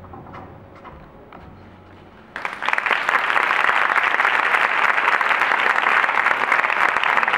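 Theatre audience breaking into loud, dense applause about two and a half seconds in, after a quiet stretch with the fading end of the music.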